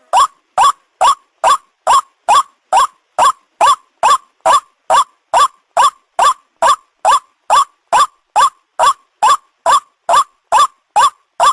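White-breasted waterhen (ruak-ruak) call: a short note sweeping sharply upward, repeated steadily at a little over two a second.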